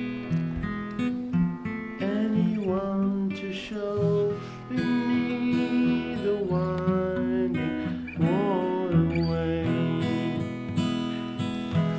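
Steel-string acoustic guitar played solo, chords ringing and changing every second or two.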